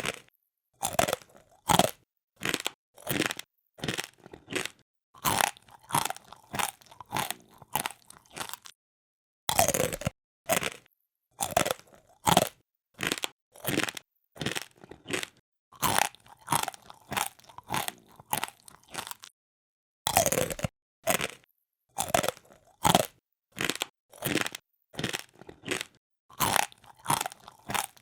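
A person chewing crunchy food, crunch after crunch at about two a second, with two short pauses about a third and two-thirds of the way through.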